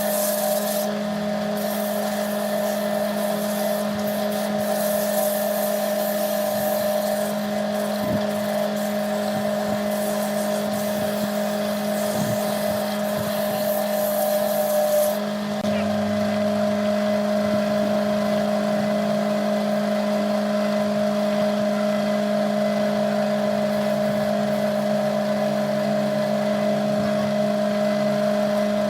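Wood lathe motor running at a steady speed with a constant hum. Over roughly the first half, a high hiss of a tool working the spinning wood and resin piece rides on top, then stops, leaving the motor alone.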